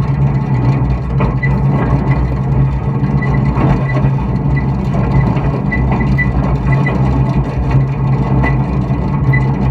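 Deutz D4506 tractor's air-cooled four-cylinder diesel running steadily while pulling a loader wagon, with short high ticks now and then.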